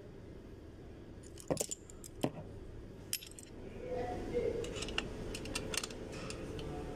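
Metal clinks and clicks of rear drum-brake hardware being handled: brake shoes, return springs and adjuster parts knocking against the steel backing plate. A few sharp clinks come between about one and a half and three seconds in, then lighter scattered taps.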